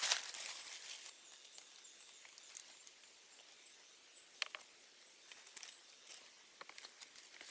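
Dry palm fronds rustling and crackling as a bundle is handled, loudest in the first second. Then a faint steady outdoor hiss with a few short, sharp clicks.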